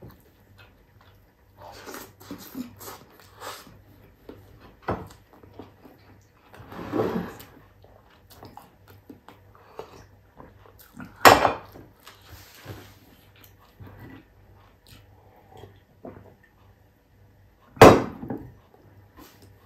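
A person eating with his hand: soft chewing and mouth noises and a sip of vegetable broth from a glass bowl. Two sharp knocks, about eleven seconds in and near the end, are the loudest sounds.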